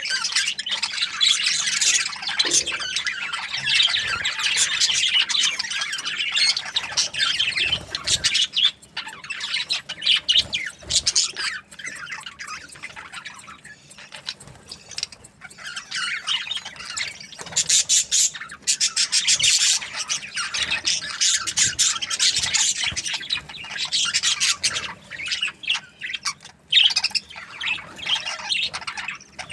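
A group of budgerigars chattering, with a dense, continuous mix of high chirps, squawks and warbles. It thins out for a few seconds in the middle, then grows busy again.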